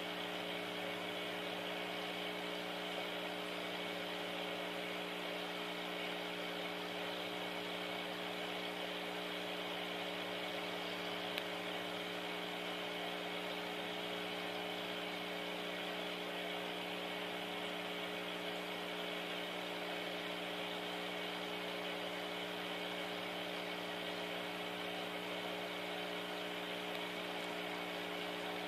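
Steady, unchanging hum of a small electric motor: several fixed low tones with an even hiss over them.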